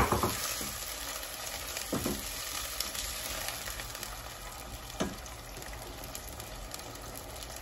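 Onions and ginger-garlic paste sizzling in oil in a nonstick pan while being stirred with a silicone spatula, with a few knocks of the spatula against the pan: at the start, about 2 s in and about 5 s in, the first the loudest. The masala is being fried down (kosha) with a little water.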